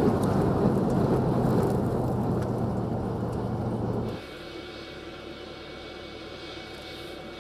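Rumble of a chase car driving fast behind a landing U-2, with a steady low engine hum under the road and wind noise. About four seconds in it cuts off abruptly, and a quieter, steady aircraft engine sound with a faint high whine follows.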